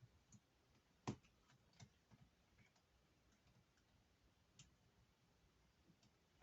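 Faint, scattered clicks and taps of small laptop parts being handled during reassembly, the loudest about a second in.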